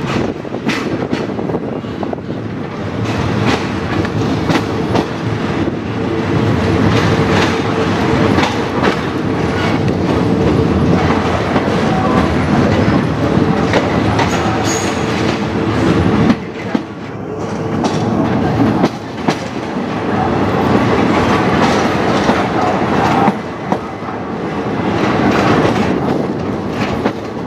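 State Railway of Thailand passenger train running slowly on a curve, heard from aboard: a steady rumble of the coaches with repeated clacks as the wheels cross rail joints and points.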